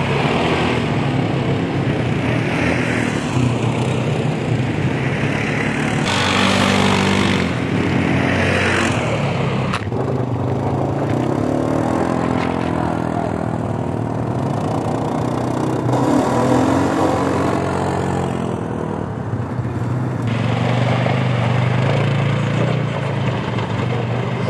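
ATV (quad bike) engines running and revving as the quads drive around on gravel, the engine note rising and falling as they pass. The sound changes abruptly a few times.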